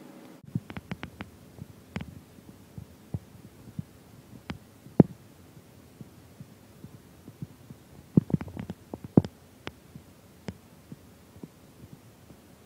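Irregular knocks and clicks, unevenly spaced, some low and dull and some sharp, with a cluster about eight seconds in; a steady hum cuts off about half a second in.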